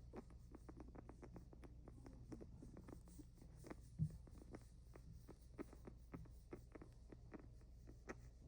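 Sick guinea pig making rapid, irregular faint clicking sounds with its breathing, an unusual sound that signals serious illness. One louder thump about halfway through.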